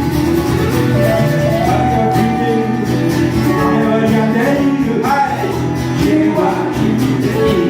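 Live acoustic band music: strummed acoustic guitars with a melody line and some singing over it.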